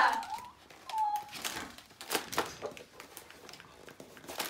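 Hollow Easter egg shells and sweet packets being handled and opened: scattered clicks, knocks and rustling, with one short cooing note about a second in.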